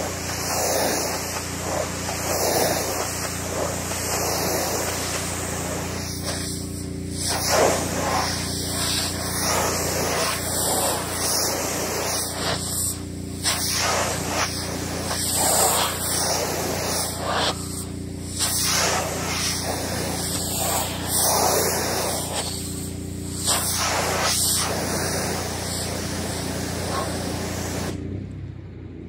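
Pressure-washer jet spraying water across solar panels: a steady hiss that swells and fades as the wand sweeps, over the constant hum of the machine. The spray cuts off about a second before the end, leaving the hum.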